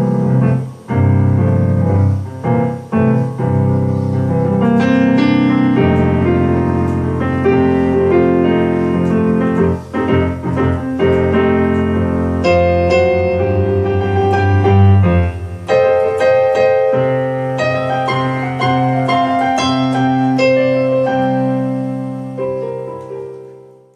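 Electronic keyboard played with a piano-like sound: chords and quick runs of notes over held low bass notes, fading out near the end.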